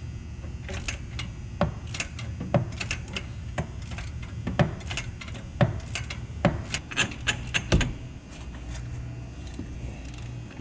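Sharp, irregular metallic clinks and taps of shop work on metal parts, a dozen or more, over a steady low hum.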